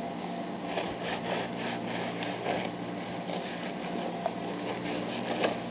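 Bread knife sawing back and forth through the crisp crust of a sourdough loaf on a wooden cutting board, in a series of short crackling strokes.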